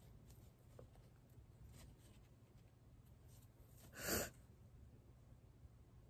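A woman sneezes once, a single short, sharp burst about four seconds in.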